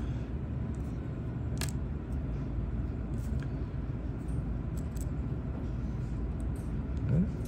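Dental lab polishing motor running steadily with a low, even hum while a restoration is polished, with a sharp click about a second and a half in.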